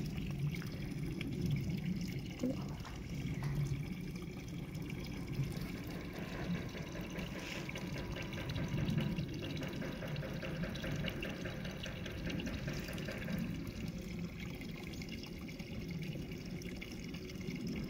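Spring water trickling steadily into a small koi pond.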